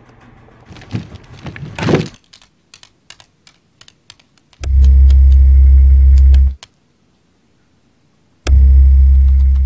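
A raccoon scrabbling through a vent, then its claws ticking lightly on a hard floor. Twice, a loud, low, steady hum of about two seconds starts and stops abruptly.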